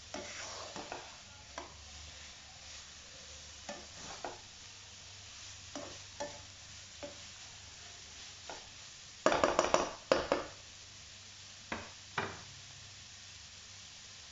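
Black slotted spatula stirring and tossing shredded cabbage and carrot in a nonstick wok, scraping the pan in scattered strokes, with a quick run of loud scrapes about nine seconds in and two more shortly after. A faint sizzle of the vegetables sautéing in oil runs underneath.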